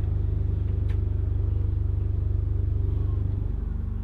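Fendt 824 Favorit tractor's turbo diesel engine idling with a steady low throb. About three and a half seconds in the note drops a little and gets slightly quieter.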